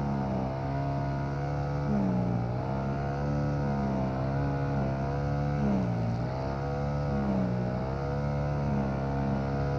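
Monotech MGX35 four-stroke brush cutter engine running at high speed while cutting grass. Its pitch dips several times as the cutting head bites into the grass, then recovers.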